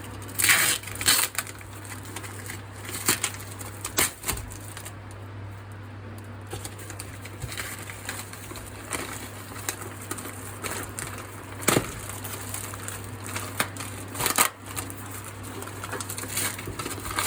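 Hands pulling at a taped cardboard shipping package, making irregular rustling, crinkling and sharp crackling, over a steady low hum.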